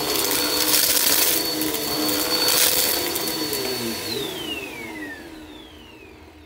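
Bissell upright vacuum cleaner running with a steady high whine, with two brief crackling bursts in the first few seconds. About four seconds in it is switched off, and the motor winds down with its whine falling in pitch and fading.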